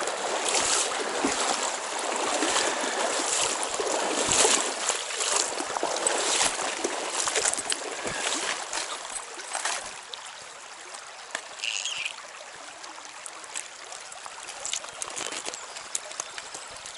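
Trout stream running, with a stretch of splashing over roughly the first ten seconds before it settles to the steady flow of the water.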